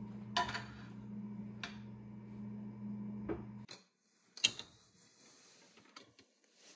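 A few sharp clicks and knocks of household objects being handled, over a steady low hum that cuts off abruptly about three and a half seconds in.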